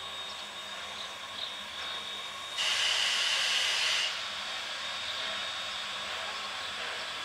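A burst of hissing steam from the SNCF 141 R Mikado steam locomotive, about a second and a half long, starting about two and a half seconds in and cutting off suddenly over a faint steady background hiss.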